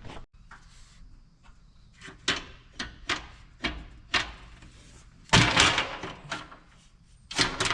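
A steel tractor shield being fitted back onto a Case IH 7130 tractor: a series of sharp metal clanks and knocks, the loudest a little past five seconds in, with more near the end.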